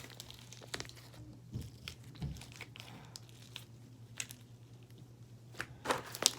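Sticky, stringy slime mixed with foaming hand soap being stretched and pulled by hand: faint scattered sticky clicks and crackles, a few louder ones near the end.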